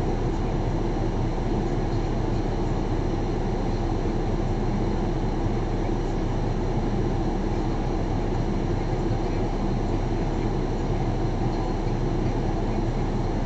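Steady, unchanging rumble of a car engine idling, heard through a dashcam inside the stationary car.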